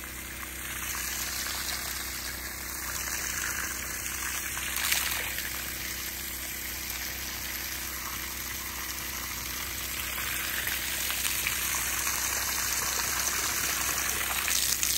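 Stream of water from a garden hose splashing steadily onto wet mulch and soil at the base of a tree, a continuous hiss that grows a little louder near the end as it hits pooled water, filling the basin for a deep watering.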